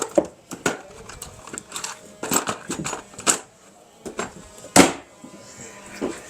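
Irregular clicks and knocks of hands working with tools and parts, the loudest knock a little before five seconds in.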